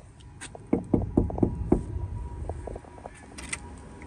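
Knocking on a front door: a quick run of about six knocks in the first two seconds, then a couple of softer ones.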